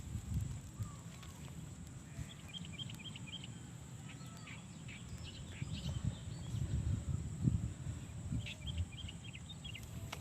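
A bird gives two short runs of rapid high chirps, a few seconds apart, over a low, uneven outdoor rumble.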